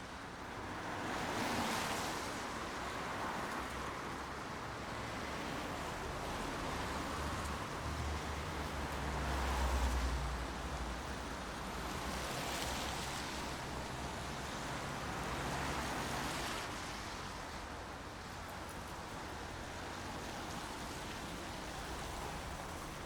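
Steady rain hiss that swells and eases several times, with a low rumble that peaks about ten seconds in.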